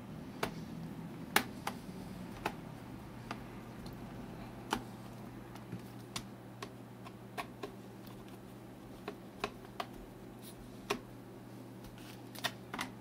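Small screwdriver turning the screws of a laptop's plastic hard-drive bay cover: scattered sharp clicks and ticks, roughly one a second.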